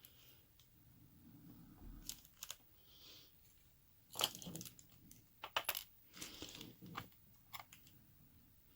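Small metallic clicks and taps of brass lock pins and springs being worked out of a padlock's cylinder and set down, a few quick clinks in irregular clusters.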